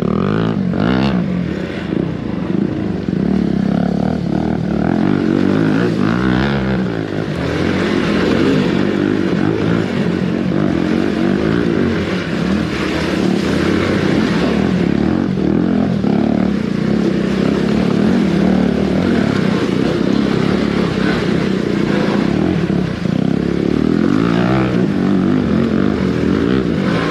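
Hero Xpulse 200's single-cylinder engine running steadily off-road, its pitch rising and falling with the throttle as the bike picks its way over rocks and shallow water.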